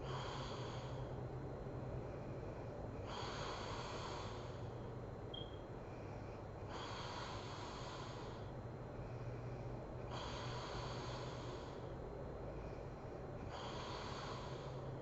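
A sleeping woman breathing heavily: five rough, airy breaths about three and a half seconds apart, without the pitched snore, over a low steady hum.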